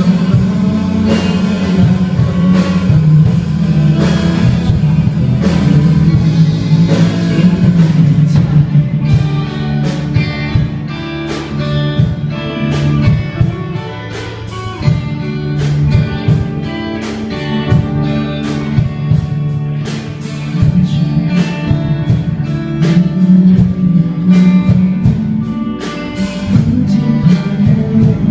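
A song with guitar to the fore. From about nine seconds in, quick, short plucked guitar notes run over a steady bass.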